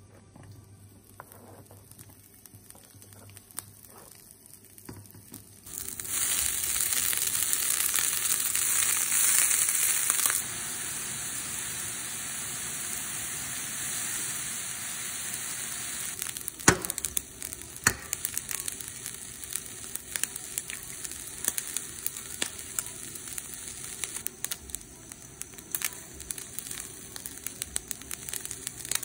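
Food hitting a hot pan: a loud sizzle starts suddenly about six seconds in. After a few seconds it settles into a steadier, quieter frying sizzle with frequent crackles and pops.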